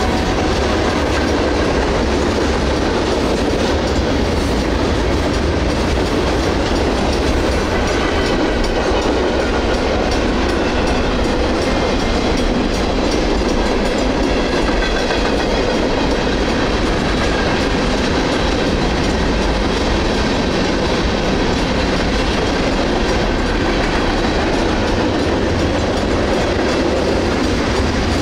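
Freight cars of a Union Pacific train (centerbeam lumber flatcars, tank cars and boxcars) rolling steadily past through a grade crossing. The steady rumble is loud, with the clickety-clack of the wheels over the rail joints.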